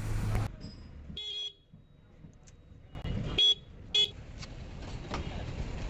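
Short vehicle horn toots, three of them: one about a second in, then two quick ones about three and four seconds in, over low background noise.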